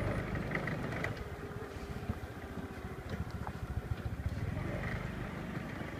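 Small farm tractor's engine chugging steadily as it hauls a heavily loaded cart of grain sacks along a rutted dirt track.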